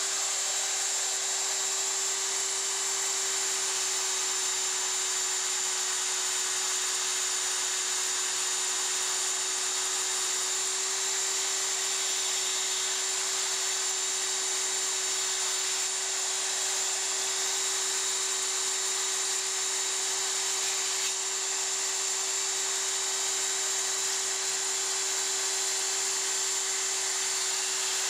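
Belt sander clamped in a vise running steadily, a hum with a high whine above it, while the edge of a plastic wingtip adaptor is pressed against the moving sanding belt.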